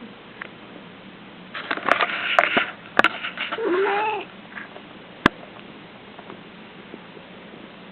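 Dreaming cat whimpering in its sleep like a puppy: a flurry of squeaky noises about a second and a half in, then a short wavering whine. Two sharp clicks, one in the middle and one just after.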